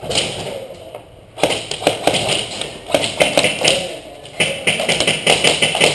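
Airsoft gunfire: an irregular, rapid run of sharp snaps and taps starting about a second and a half in, with a short lull near the four-second mark before it resumes.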